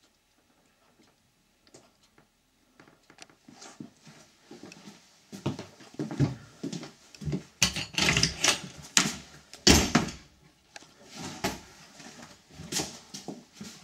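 Irregular knocks, clunks and scuffs inside a horsebox as a person moves about and a wooden door is handled and opened, the clatter loudest in the middle.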